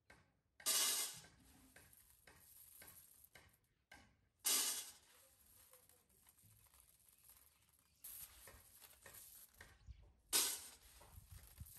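Dry beans being sorted by hand in a woven tray: small clicks as beans are picked over and dropped, with three louder rattling rushes as beans slide across the tray, about a second in, midway and near the end.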